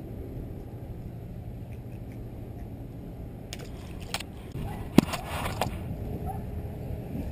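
A clear plastic tackle box being handled on a wooden dock: a few sharp plastic clicks and knocks, the loudest about five seconds in, over a steady low rumble.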